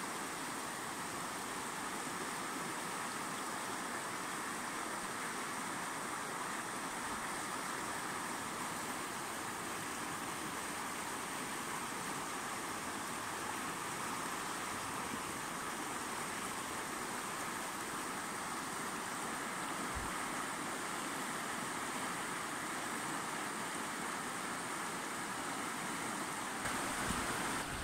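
Steady rush of a fast-flowing mountain river running over stones, a little louder near the end.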